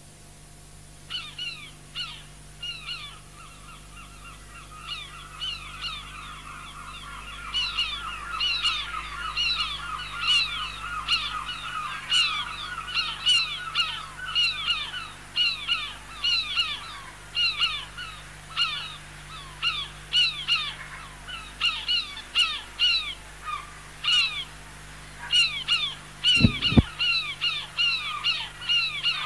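Gulls calling at a harbour: a chorus of short, rapidly repeated falling calls from several birds, growing louder and busier after the first few seconds. There is a single dull thump near the end.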